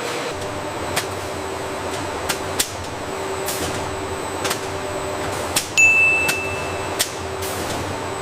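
Food-processing line ambience: steady machinery hum with scattered sharp clicks and clanks. About six seconds in, a single high electronic beep sounds for about a second.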